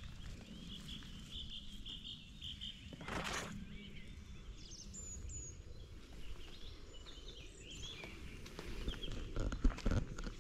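Small birds chirping in the background: a quick series of short high notes in the first couple of seconds, then a few scattered chirps. A brief rustle about three seconds in, and a low rumble underneath.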